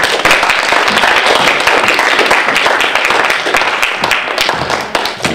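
Audience applauding: many hands clapping in a dense, loud patter that dies away near the end.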